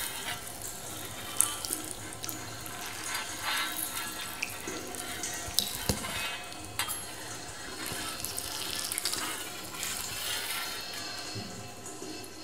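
Water running and splashing in a fish tank, with scattered sharp wet clicks, over faint music.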